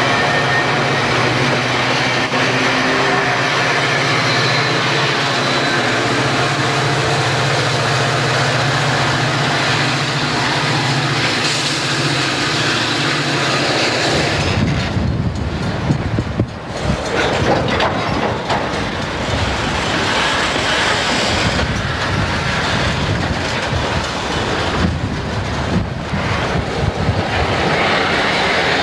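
Metra commuter train of bilevel coaches rolling through the station with a steady rumble and hum. About halfway through, this gives way to a deeper, uneven rumble of diesel freight locomotives moving slowly past.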